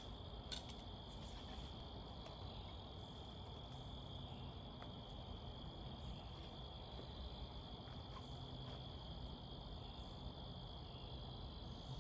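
Faint, steady high-pitched trilling of insects, likely crickets, with a low even hum beneath.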